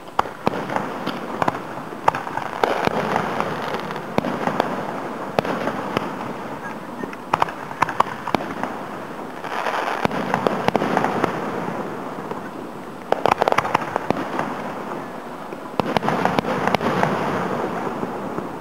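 Aerial fireworks display heard from about a quarter mile away: repeated bangs of shells bursting, with stretches of dense crackling. The loudest cluster of bangs comes about two-thirds of the way through.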